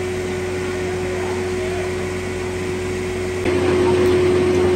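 Steady machinery hum with one strong constant tone, stepping up in level about three and a half seconds in.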